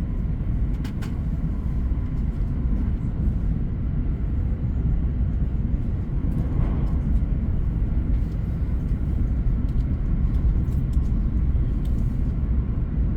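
Train running: a steady low rumble that holds even throughout, with a few faint ticks above it.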